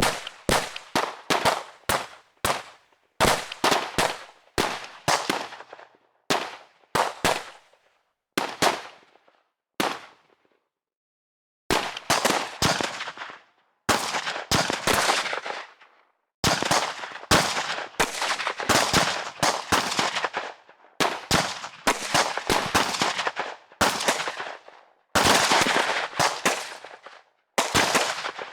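Gunfire: single shots and short bursts, each with a reverberant tail, then after a pause of nearly two seconds, longer rapid automatic bursts like machine-gun fire.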